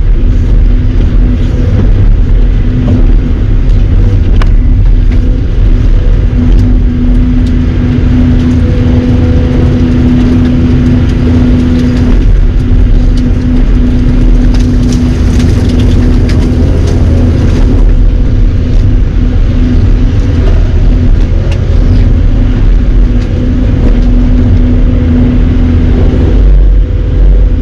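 An engine running steadily and loudly close by, with a constant low drone that holds much the same pitch throughout.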